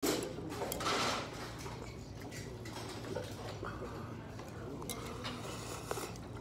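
Chopsticks and a soup spoon clicking and scraping against a soup bowl while eating noodle soup, with a few sharp clicks.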